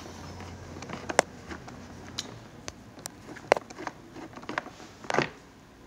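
Scattered sharp clicks and light knocks of a screwdriver turning screws out of a plastic fan housing, the metal tip and screw ticking against the plastic at irregular intervals.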